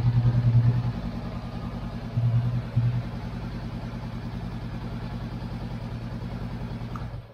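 Honda CB500X's 471 cc parallel-twin engine idling in neutral with a steady low pulse, louder for about the first second and twice more briefly between two and three seconds in.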